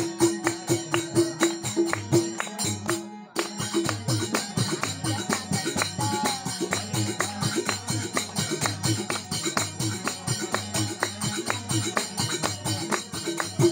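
Kirtan music with a fast, steady percussion beat of drum strokes and jingling strikes. It breaks off briefly about 3 seconds in, then carries on.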